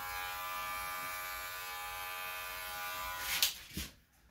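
Electric hair clippers buzzing steadily against the hair. The buzz cuts off a little over three seconds in and is followed by two sharp knocks.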